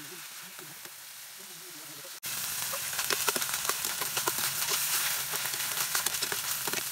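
Ground pork with onion and garlic sizzling as it is sautéed in a pot, a metal spoon stirring and scraping it. The sizzle is soft at first and jumps much louder about two seconds in, with many small clicks from the spoon against the pot.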